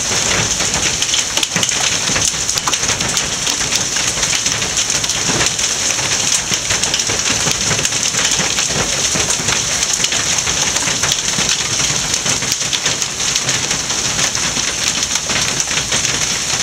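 Quarter-sized hail pelting down in a heavy storm: a loud, steady clatter of countless hailstone impacts.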